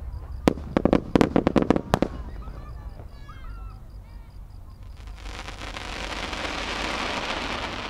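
Aerial firework shells bursting: a quick run of sharp bangs and cracks in the first two seconds. From about five seconds in, a steady rushing hiss swells.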